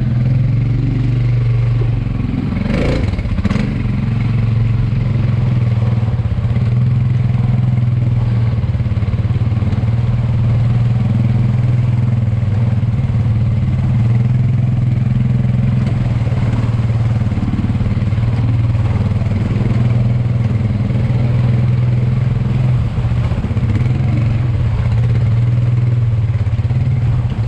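ATV engine running with a steady drone, with two short knocks about three seconds in.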